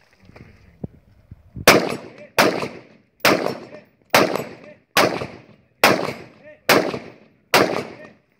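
Eight single shots from an AR-15-style rifle, fired at an even pace a little under a second apart and starting about a second and a half in, each shot followed by a short echoing tail.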